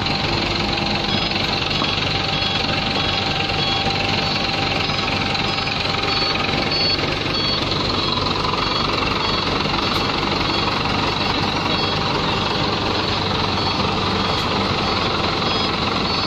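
Heavy diesel engine running steadily with a knocking clatter, under a faint repeating two-tone electronic beep.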